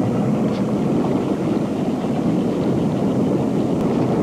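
Steady wind rushing over the microphone on an open boat, a constant rough noise without any engine tone.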